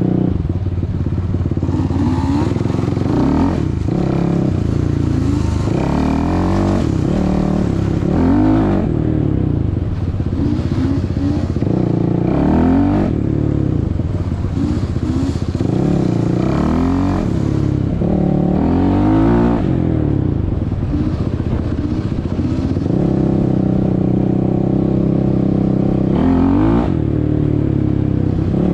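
Suzuki LT-R450 sport quad's single-cylinder four-stroke engine, heard up close from the handlebars, revving up and down again and again with the throttle as it rides. It holds a steadier pitch for a few seconds near the end.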